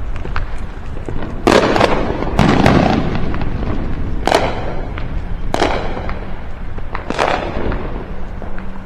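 Fireworks going off: about five sharp bangs spaced one to two seconds apart, each trailing off briefly, over a steady low rumble.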